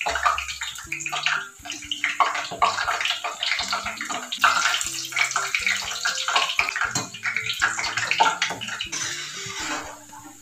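Hot oil sizzling and crackling steadily as whole green chillies deep-fry in a steel pan, easing a little near the end.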